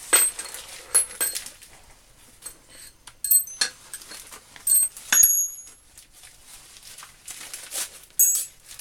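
Steel reamers clinking against each other as they are handled: a handful of short, sharp metallic clinks, each with a brief high ring.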